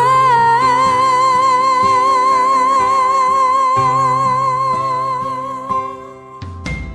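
Pop ballad: a singer holds one long note with a wide vibrato for about six seconds over backing chords and bass, the note fading away near the end.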